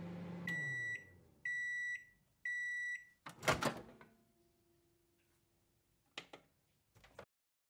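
Microwave oven finishing its cycle: the running hum dies away, three evenly spaced beeps sound, then the door opens with a loud clunk. Two soft clicks follow near the end.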